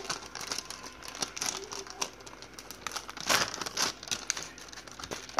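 Homemade slime being squished and mixed by hand, giving a run of irregular sticky crackles and clicks, thickest about three seconds in. The slime has gone runny after paint was mixed into it.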